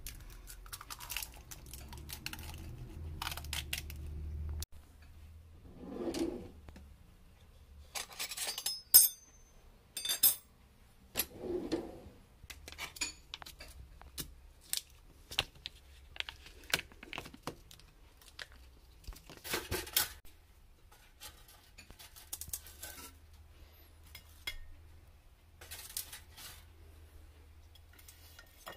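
Kitchen handling sounds: a long run of separate sharp clicks, taps and clinks from a table knife, a small plastic tub and a plate, with a few brief rustling swishes. A low hum under the first few seconds stops abruptly.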